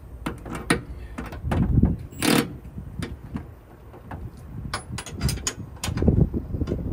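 Metal clicks and knocks as a Milwaukee M18 cordless impact wrench and its socket are worked on a truck torsion bar bolt. About two seconds in comes one short burst of the impact wrench running.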